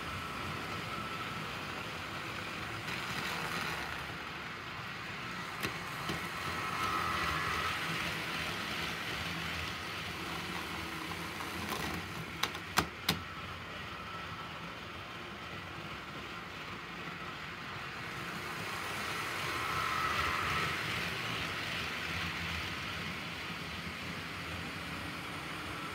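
HO scale model trains running on sectional track, a steady whirring and rolling of small motors and wheels that swells a few times as trains pass close. About halfway through come a few sharp clicks as a locomotive is set on the rails by hand.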